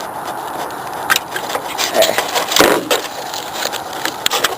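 Hands handling the RC plane while plugging in its flight battery connector: a run of small clicks, knocks and rustles starting about a second in.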